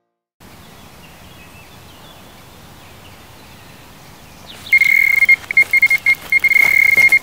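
Faint outdoor background, then about four and a half seconds in an electronic carp bite alarm starts sounding: a loud, high, steady beep that keeps breaking off and resuming in quick succession. This is the signal of a run, a fish pulling line from the rod.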